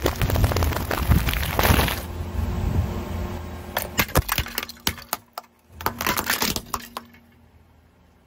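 Car tyre rolling onto snack sachets and crushing them with a dense crunch for the first two seconds. About four seconds in a white plate cracks and shatters under the tyre: a run of sharp cracks and snaps, a brief pause, more snapping of the shards, stopping about seven seconds in.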